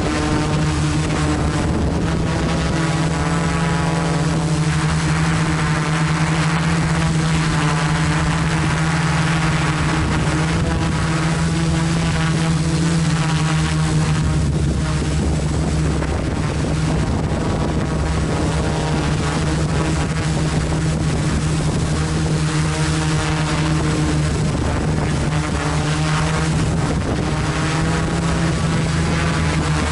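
FPV quadcopter's motors and propellers buzzing loudly and steadily as it hovers low, the pitch shifting a little with the throttle.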